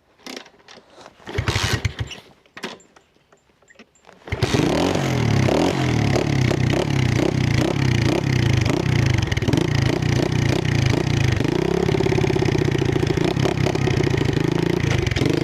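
Trailmaster 125 pit bike's 125cc single-cylinder four-stroke engine, picked up close to the exhaust: a short burst of engine sound about a second and a half in, then about four seconds in it catches and runs steadily with an even pulse, its note shifting a few times later on.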